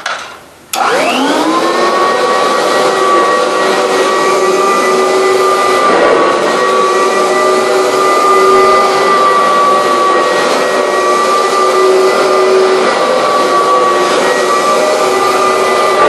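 Upright vacuum cleaner switched on less than a second in, its motor whining up to speed within about a second, then running steadily.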